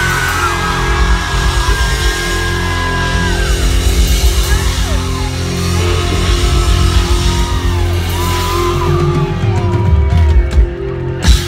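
Live band playing through a concert PA: electric and acoustic guitars, drum kit and keyboards, with a sharp loud hit near the end.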